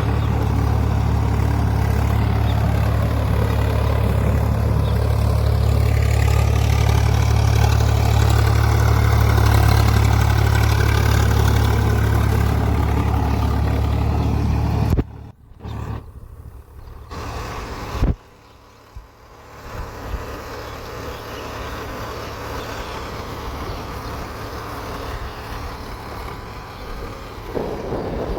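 Swaraj 855 FE tractor's three-cylinder diesel engine running steadily, working a plough. About halfway through the sound drops away abruptly and breaks up for a few seconds, then the engine goes on more quietly.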